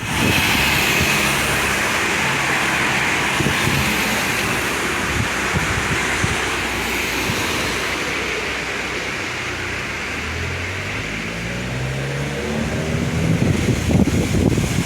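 A motor vehicle engine running amid steady traffic noise, its pitch rising and growing louder over the last few seconds.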